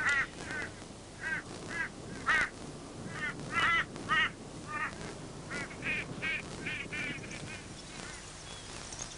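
Crows cawing: a run of short, harsh calls, often in quick pairs or threes, from several birds, stopping shortly before the end.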